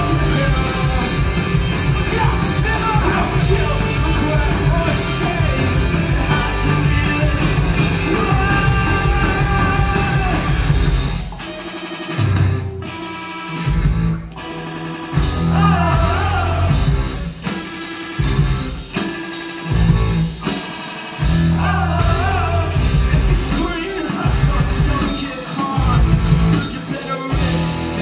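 Live punk rock band playing loud, with distorted electric guitars, bass and drums. About eleven seconds in the cymbals drop out and the band falls into a sparse break. It then plays stop-start hits separated by short gaps.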